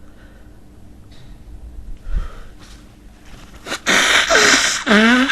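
A man's quiet sniffs and breaths, then, about four seconds in, a loud sneeze: a harsh blast of breath, followed near the end by a second blast in which his voice drops sharply in pitch.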